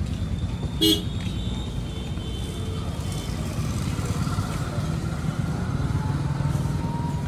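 Steady low rumble of street traffic, with a short, loud horn beep about a second in.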